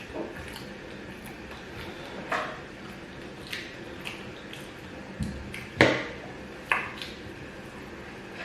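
Eating at a plate of gari and beans: a utensil clinks against the dish several times, short sharp clinks with the loudest about six seconds in.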